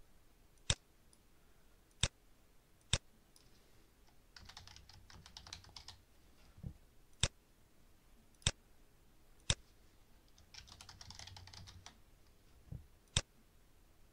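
Single sharp mouse clicks, seven in all, spaced a second or more apart, with two short runs of typing on a computer keyboard, one about four seconds in and one near eleven seconds.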